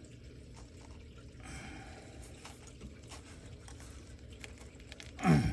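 Faint scattered metal clicks and handling noise as a cotter pin is worked loose in the truck's steering linkage. Near the end a man gives a short grunt that falls in pitch.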